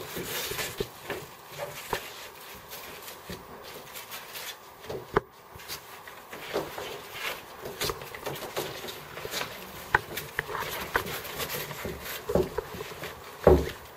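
Handling noise from the straps of a CT-6 leg traction splint being pulled and fastened: rustling and scuffing of strap webbing with scattered light clicks, one sharper click about five seconds in.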